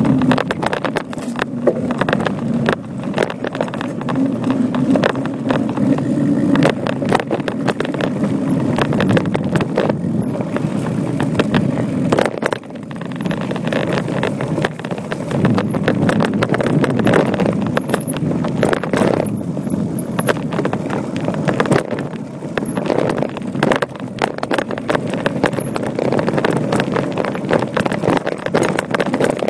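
Voodoo Bizango mountain bike riding fast down a rocky dirt trail: tyres rolling and crunching over stones and gravel, with constant rattling and sharp knocks as the bike and its mounted camera jolt over the rough ground.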